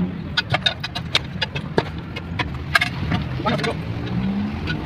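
Steel tyre lever clinking and knocking against an alloy wheel rim as a tyre bead is levered on by hand: an irregular string of sharp metallic clicks. A low engine rumble runs underneath.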